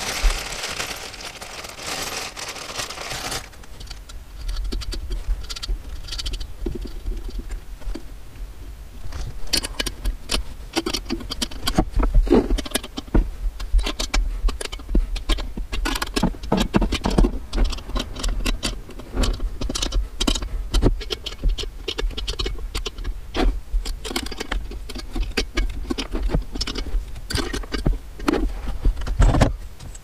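Hand work on a diesel parking heater's metal top plate and fittings: irregular clicks, scrapes, rattles and knocks of a screwdriver and small metal hardware, with dull handling thumps. A rustling hiss fills the first few seconds.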